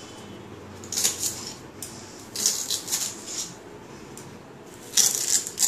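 Kitchen knife slicing through a bundle of kharkol leaf stalks into small pieces, the blade striking a marble countertop, in three short bursts of crisp cuts.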